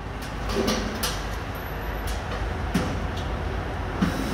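Steady low background rumble with a handful of short clicks and knocks spread through, like tools or hardware being handled.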